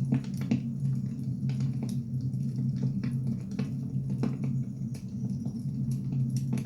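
Firewood burning, crackling with irregular sharp pops over a steady low rumble.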